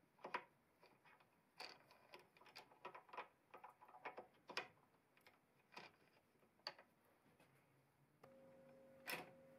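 Scattered faint metallic clicks and clinks from steel external jaws being slotted one by one into a Pratt Burnerd three-jaw lathe chuck, with the chuck key turning the scroll to draw them in. A faint steady hum comes in near the end.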